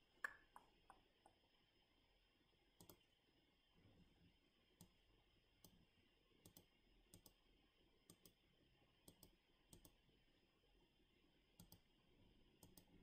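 Computer mouse button clicks, faint and scattered, some in quick pairs, with a quick run of clicks right at the start.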